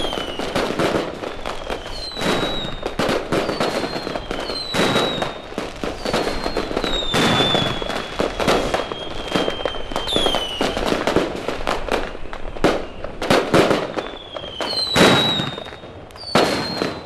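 Fireworks going off in quick succession: a dense run of bangs and crackling, with a high whistle every second or two that dips slightly in pitch. The biggest bang comes near the end.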